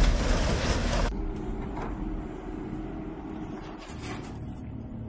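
Freight train of autorack cars rolling past with a loud rumble, cut off abruptly about a second in. A much quieter steady engine hum follows.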